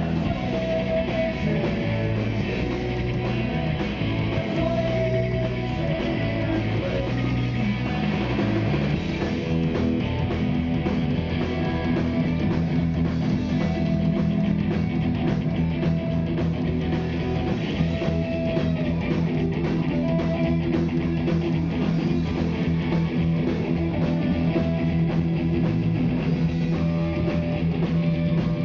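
Rock band playing live, loud and continuous: electric guitar, electric bass and drum kit.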